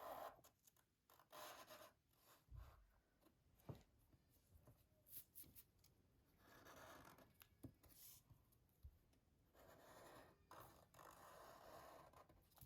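Faint Sharpie marker strokes scratching across paper while tracing around a template, with a few light taps in between.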